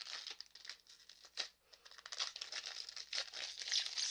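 Foil wrapper of a Pokémon trading card booster pack crinkling and tearing as it is opened and the cards are drawn out, an irregular rustle with a few sharper crackles.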